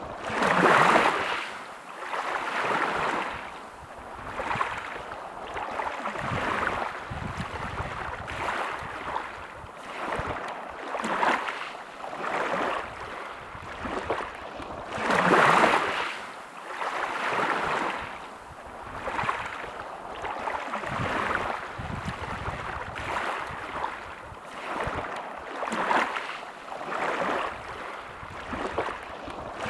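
Sea waves washing onto a beach, the surf swelling and fading every couple of seconds, with a bigger wave breaking about a second in and another about halfway through.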